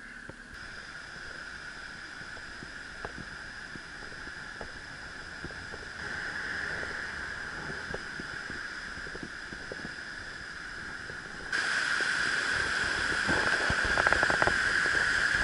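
Floodwater of the Tarn rushing and churning in spate, a steady noise of fast turbulent water that suddenly grows louder about three-quarters of the way in.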